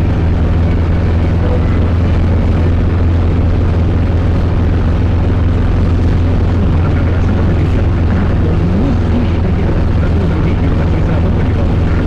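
Zetor 7011 tractor's four-cylinder diesel engine running steadily while driving, heard from inside the cab as an even low drone.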